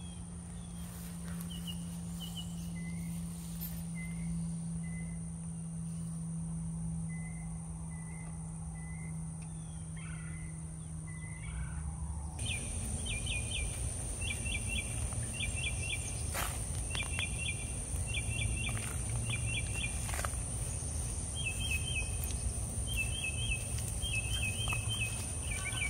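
Outdoor garden ambience: birds chirping in short repeated calls over a steady high-pitched insect drone. A low steady hum runs through the first half, then the background changes abruptly about halfway through. There are a couple of soft knocks in the second half.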